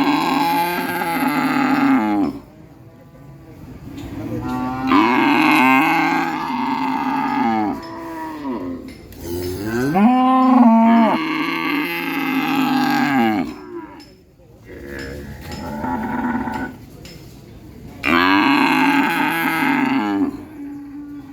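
Cattle mooing: about five long moos in a row with short pauses between, one near the middle rising and falling in pitch.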